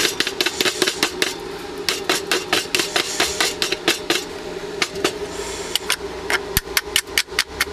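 Chipping hammer tapping quickly on a fresh stick weld in thin steel plate, knocking off the slag: sharp metallic taps about five a second in runs with short pauses, over a steady low hum.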